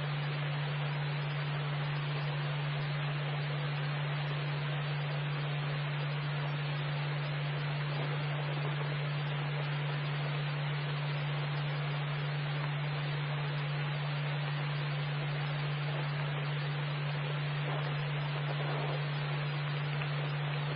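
Police scanner radio hissing with steady static between transmissions, over a constant low hum.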